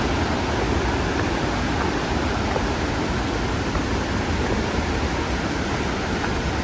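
Steady roar of a large waterfall, Kaminari Falls, a loud even rush of falling water.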